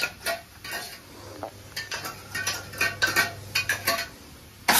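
Steel kitchen utensils clinking and scraping: a spoon knocking against a small steel bowl and the pan as ingredients are tipped in and stirred, in irregular short clinks.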